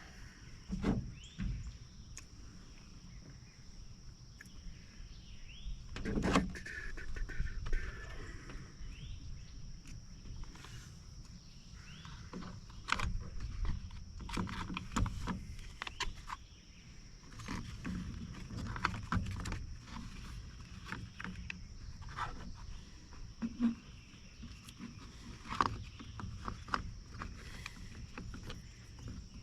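Scattered clicks, taps and knocks of hands handling and fitting small-engine parts on a string trimmer, over a steady high-pitched tone.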